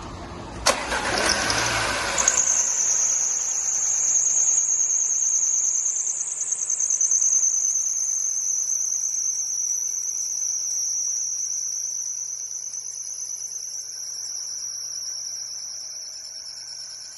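Audi A6 engine starting from cold: a click and about two seconds of cranking as it catches, then a steady high-pitched squeal over the idle that drifts slightly lower in pitch and fades. The squeal is from a worn auxiliary belt tensioner.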